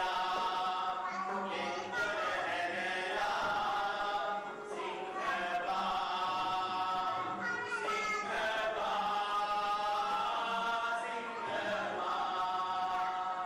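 A chorus singing a song from a stylised Sinhala stage drama (shailigatha natya), in phrases of long held notes a couple of seconds each.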